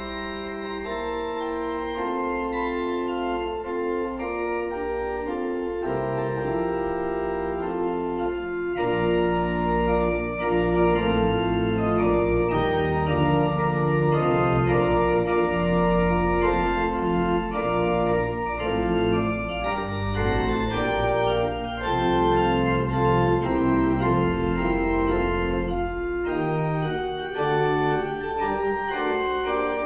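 Church pipe organ playing the postlude in sustained chords, with deep pedal bass notes joining and the sound growing fuller about nine seconds in.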